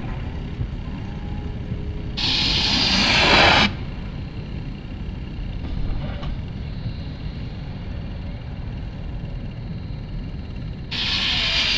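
Snowboards sliding fast down a plastic-mat ramp: two loud hissing rushes of about a second and a half each, one about two seconds in and one near the end, each cutting off sharply as the board leaves the kicker. A steady low rumble runs underneath.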